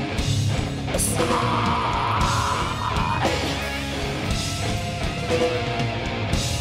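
Live rock band playing an instrumental passage between vocal lines, led by electric guitar.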